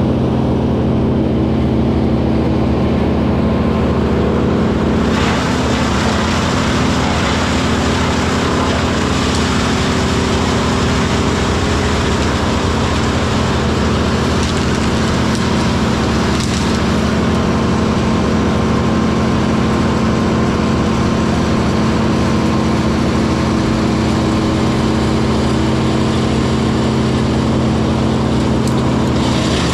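Diesel engine of heavy equipment running steadily at a constant speed. About five seconds in, a louder rushing noise comes in on top of it, and it eases near the end.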